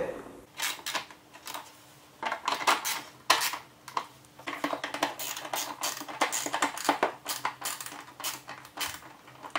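Hand ratchet with a 10 mm socket clicking in short runs, with light metallic clinks, as nuts are run back onto the cup holder's mounting studs.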